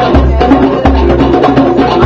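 Live hand-drum jam: a djembe and a smaller hand drum struck in a quick, busy rhythm, with an electric guitar playing notes along through a small amp.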